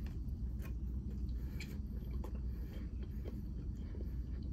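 Close-up chewing and mouth sounds, with a few scattered short clicks and smacks over a low steady hum.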